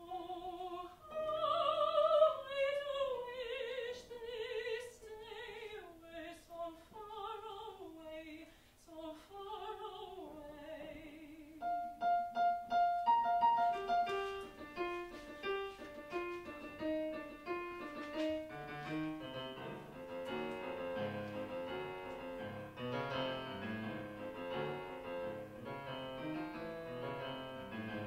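A soprano sings an operatic line with wide vibrato over piano accompaniment, the voice stopping about ten seconds in; the piano then plays on alone.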